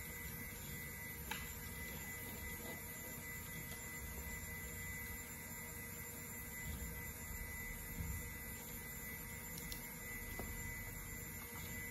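Steady hum of a running IBM PC Server 315 tower computer, with a faint high-pitched whine over a low rumble. There is a faint click about a second in.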